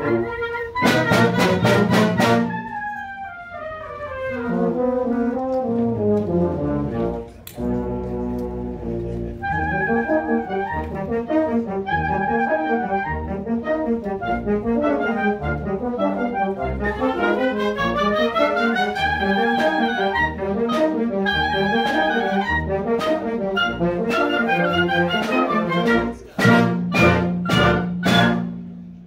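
Concert band of brass and woodwinds playing a piece together. Sharp accented hits come near the start and again near the end. In between, a falling run leads into a brief break, and later a rising run follows.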